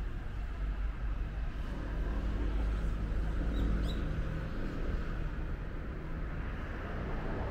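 Steady urban traffic hum, with a small bird giving two short chirps about halfway through.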